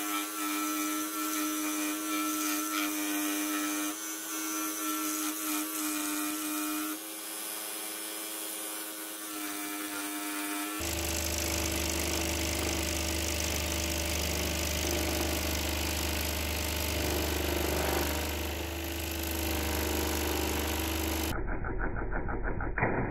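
Pégas 21-inch scroll saw running, its fine No. 1 fretsaw blade stroking up and down through a wooden tree slice. The sound shifts abruptly twice: to a deeper steady hum about halfway through, and to a fast rhythmic chatter near the end.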